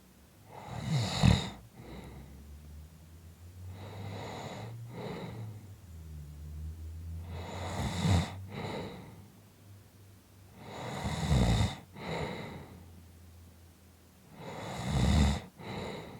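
Sleeper snoring in slow, even breaths: five loud snores about three and a half seconds apart, the second one weaker.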